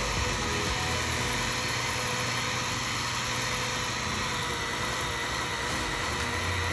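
Electric rotary polisher running at a steady speed with a constant motor whine, buffing compound into a boat's gel coat.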